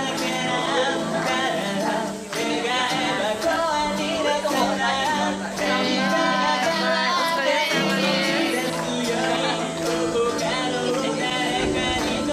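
Background music: a song with a singing voice over steady held notes.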